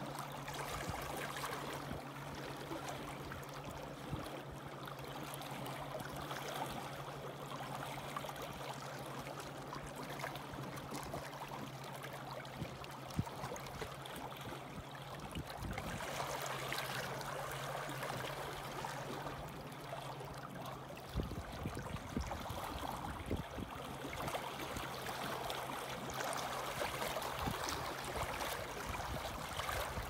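Small waves lapping and splashing against shoreline rocks, a steady wash of water. A faint steady low hum runs under it for the first two-thirds, and a low rumble comes in about two-thirds of the way through.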